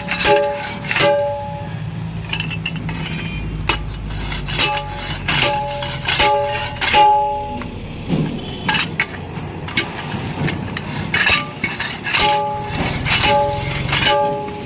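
Hammer blows on steel, each ringing on with a clear metallic tone, in groups of a few strikes about half a second apart: near the start, again in the middle, and again near the end.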